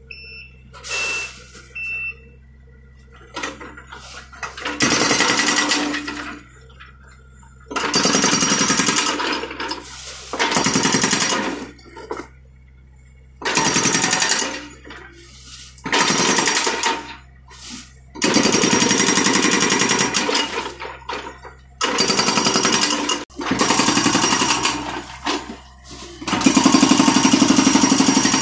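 BTI hydraulic breaker on a John Deere mini excavator hammering concrete in about nine bursts of rapid blows, each lasting a second or three, with short pauses between. A low steady hum carries on through the pauses.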